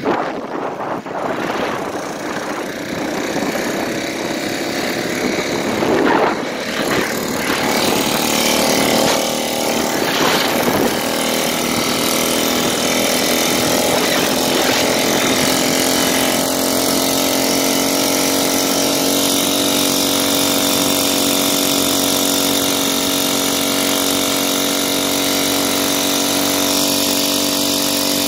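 Small gasoline engine of a motorized bicycle running while riding. Its note is uneven for the first several seconds, then holds at a steady pitch.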